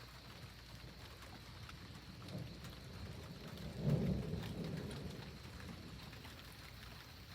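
Thunder rumbling low, swelling about three and a half seconds in and dying away over the next couple of seconds, over a steady hiss of rain.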